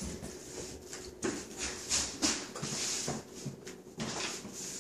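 Several short hissing bursts from an aerosol can of non-stick cooking spray, with light knocks and scuffles between them.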